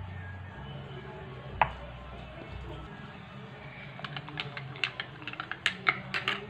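A metal spoon clinking against a drinking glass as powdered milk is stirred into water, a quick run of sharp clinks, roughly five or six a second, starting about four seconds in. A single clink comes about a second and a half in.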